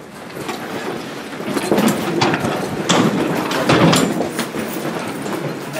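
Clattering and scuffling of several people hurrying about, with repeated knocks and scrapes, growing louder over the first two seconds.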